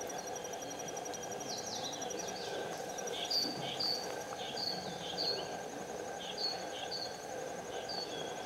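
Outdoor ambience with a high, fast insect trill. Over it a small bird gives a run of short, high, downward-sliding chirps, often in pairs, starting about two seconds in.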